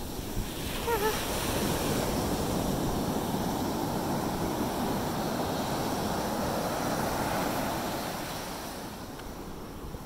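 Ocean surf breaking and washing up the beach: a rushing surge that swells about a second in, holds, then fades away near the end. Wind buffets the microphone.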